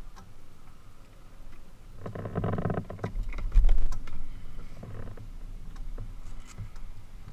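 An SUV drives past close by at low speed and pulls away, its engine loudest about two to three seconds in. A loud low thump comes a little after the middle.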